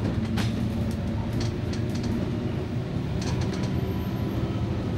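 Double-decker bus engine running steadily as the bus drives along, heard from inside on the upper deck, with a few sharp clicks and rattles, one soon after the start and a short cluster past the middle.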